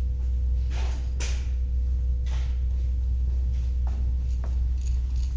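Several short knocks and scrapes of parts being handled and set on a table saw while it is switched off, likely a clamp being fitted, over a steady low hum.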